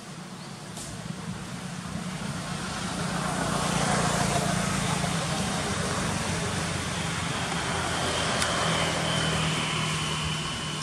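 Motor-vehicle traffic noise: engine and tyre noise that swells about three seconds in and holds steady, easing off near the end.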